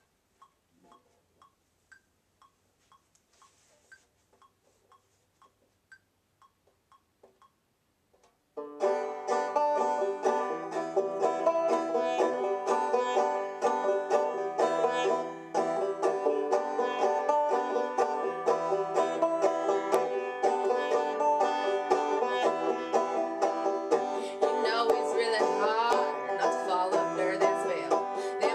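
Faint, even ticking about twice a second, then about nine seconds in a banjo starts playing a plucked, rhythmic folk intro; near the end a woman's voice begins singing over the banjo.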